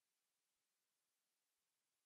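Near silence: an empty soundtrack with only a faint, even hiss.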